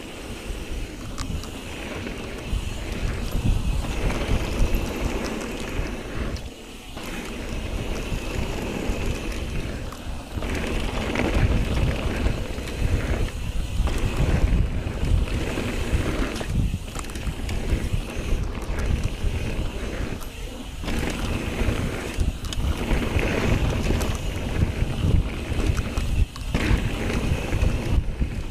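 Wind rushing over the microphone of a camera mounted on a mountain bike descending a dirt trail, mixed with the tyres rolling on dirt and the bike rattling over bumps. The noise is loud and heavy in the lows, dropping briefly a few times.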